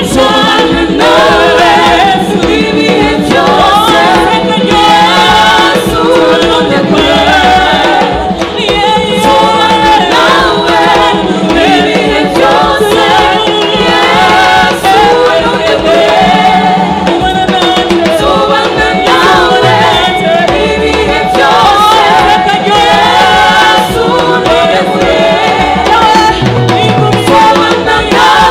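Gospel song: several voices singing together over a drum beat.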